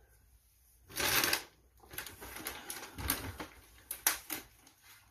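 Paper takeout bag and wrapper crinkling and rustling in someone's hands, with one louder rustle about a second in, then irregular crackles and crinkles.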